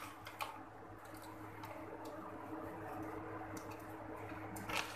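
Quiet room tone: a steady low hum with a few faint clicks, the sharpest just before the end.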